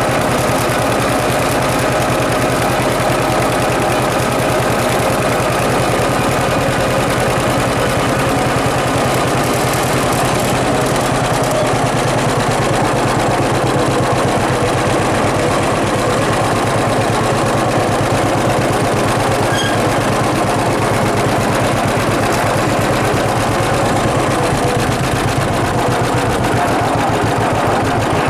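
John Deere 6300 tractor's four-cylinder diesel running steadily under load while it drives a John Deere 328 small square baler, with a fast rhythmic mechanical clatter over the engine.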